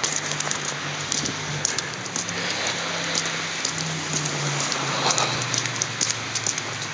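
Snowstorm precipitation striking surfaces: a steady hiss with many small sharp ticks, and a faint low hum underneath that shifts pitch a couple of times.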